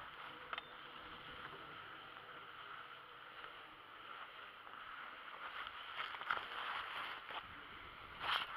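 Steady hiss of skis sliding over groomed snow in the track of a drag lift towing uphill, with scattered clicks and knocks that become louder and more frequent in the last few seconds.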